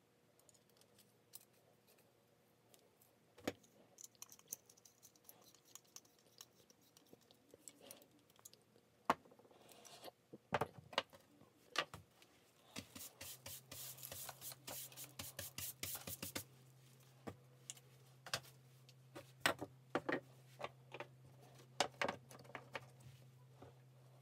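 Metal parts of a pressure washer wand being handled and reassembled by hand: scattered clicks, taps and scrapes of brass fittings and tools on a wooden bench, with a quick run of rapid clicking about halfway through.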